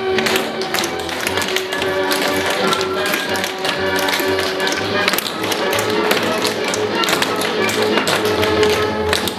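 A troupe of tap dancers' shoes clicking in quick rhythm on a parquet dance floor, over backing music with a steady beat.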